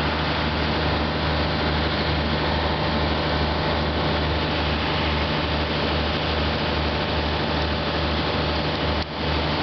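Steady machine hum: a constant low drone with a few unchanging tones over an even hiss, briefly dropping out about nine seconds in.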